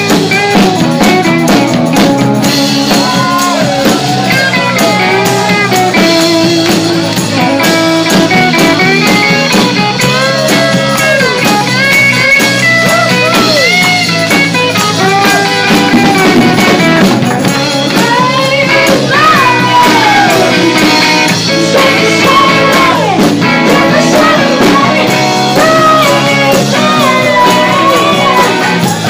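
Live band music: a woman singing into a microphone over electric guitar and bass guitar, loud and steady.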